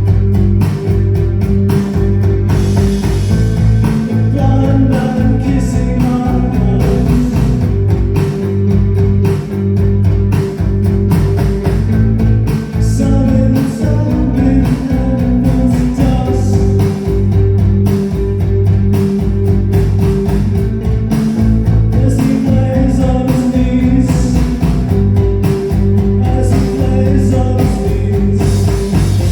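Live rock band playing loud and steady, with guitar and a singing voice over a steady beat.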